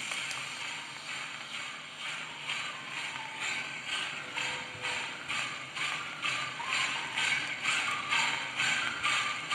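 A small loudspeaker driven by a homemade 12 V 2SC5200 transistor amplifier plays music with a beat about twice a second. A small electrolytic capacitor resting on the speaker cone rattles against it on the beats.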